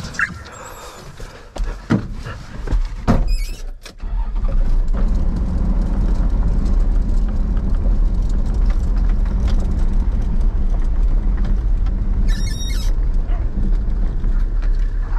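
A few knocks and thumps, then from about four seconds in the steady low rumble of a vehicle driving along a dirt farm track, heard from inside the cab, with a brief high rattle about twelve seconds in.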